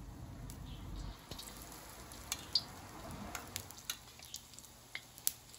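Egg-coated slices sizzling in hot oil in a wok, with scattered pops and crackles that become more frequent after about two seconds as a second piece goes into the oil.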